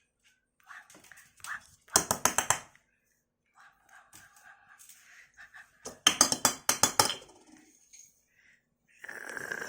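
Small hard objects clattering and rattling in two quick bursts, about two seconds and six seconds in, as the pet lory handles and drops them, with a softer rustling near the end.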